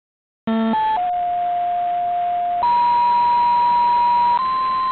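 Synthetic alert tones decoded from the AlliedSignal Mk VII warning computer's voice ROM, coded as ADPCM for an NEC uPD7759 speech chip. After a short buzzy tone come steady beeps that step up in pitch: a lower tone of about a second and a half, a higher one of nearly two seconds, then a slightly higher one. A faint hiss lies under the tones.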